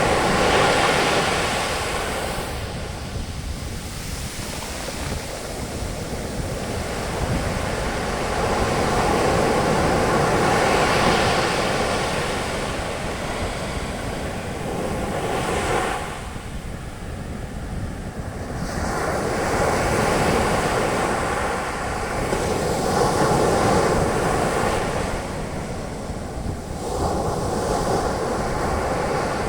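Ocean waves breaking and their foam washing up on a beach, the surf swelling and fading every few seconds, with some wind on the microphone.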